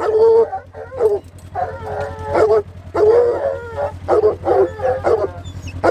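Treeing walker coonhounds baying: a run of short barks and longer drawn-out bawls, one after another.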